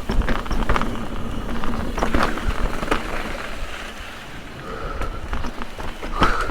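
Mountain bike rolling over rough, rocky trail: tyres crunching and the bike rattling, with many short knocks and clatters.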